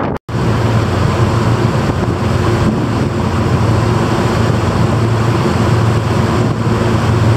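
Ferry Ocean Arrow running under way: a steady low engine hum mixed with the rush of wind and churned water.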